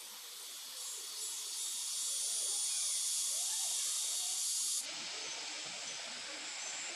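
A high-pitched hissing drone of insects. It swells over the first few seconds, then drops abruptly about five seconds in and carries on quieter.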